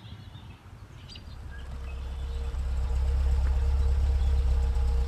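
Low engine rumble of a motor vehicle with a steady hum. It swells over the first few seconds and then holds loud and even.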